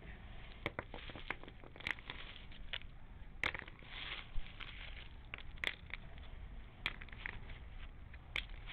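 Broken concrete pieces and gravel being scooped and moved by a gloved hand, the chunks knocking and clattering together in irregular sharp clicks.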